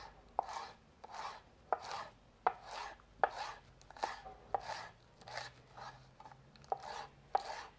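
Kitchen knife slicing fresh chard leaves on a wooden cutting board: a steady run of cuts, roughly three every two seconds, each a crisp knock of the blade on the wood with a short scratchy slice through the leaves.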